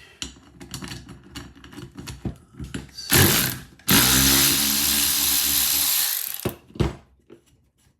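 A power drill-driver spinning out the pinch bolt on a British Seagull outboard's drive shaft casing. Light clicks and knocks of the tool being set on the bolt come first, then a short burst of the motor and a steady run of about two and a half seconds that stops abruptly.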